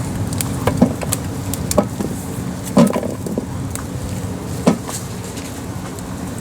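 Gooseberry picking by hand: about four short knocks and rustles as the thorny branches are handled and berries are dropped into a bucket, the loudest near the middle. A steady low rumble runs underneath.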